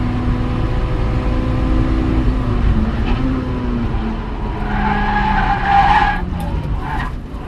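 Honda S2000's inline-four running, heard from inside the cabin, its note dropping as the car brakes hard from about 113 mph. The tires then squeal loudly for about a second and a half past the middle, with a few short squeals after.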